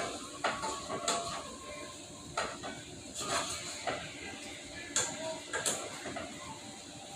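Metal utensil clinking and knocking against a cooking pot, about six clinks with brief ringing, over a steady hiss.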